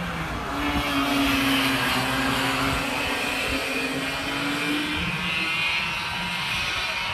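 Racing karts' two-stroke engines running as a small pack laps the circuit, heard from trackside. The engine note swells about a second in and eases off near the end.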